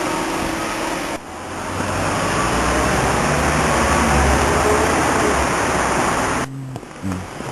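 Road traffic noise: a steady hiss with a vehicle's low rumble building up and easing off. It cuts off suddenly about six and a half seconds in.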